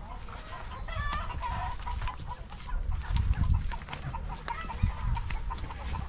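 Chickens clucking: a steady string of short calls, with a low rumble about three seconds in.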